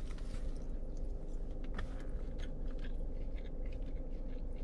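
A person chewing a mouthful of chicken teriyaki rice bowl, with small irregular wet clicks and smacks of the mouth over a steady low hum.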